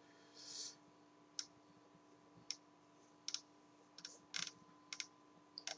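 Faint computer mouse clicks, about ten of them at irregular intervals, over a faint steady hum.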